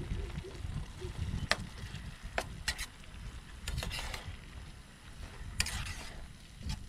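A metal spoon stirring meat in broth in a small camping pot on a portable gas stove: several sharp clinks and scrapes of spoon against pot, spaced irregularly.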